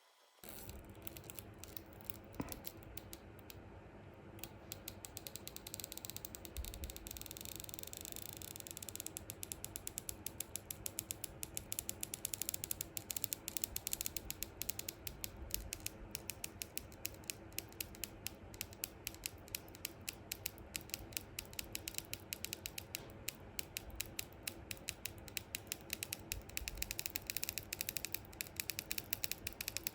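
iPhone 6S battery adhesive pull-tab being slowly stretched and peeled out from under the battery, creaking with a long run of small rapid clicks as the glue lets go bit by bit.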